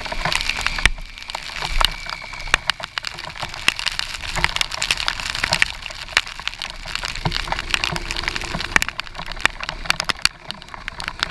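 Dense, irregular tapping and crackling of raindrops hitting a helmet-mounted action camera's waterproof housing, over a steady hiss.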